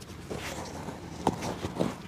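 A few short light knocks and scuffs from a cobbler handling and working on a shoe, two sharper taps coming in the second half.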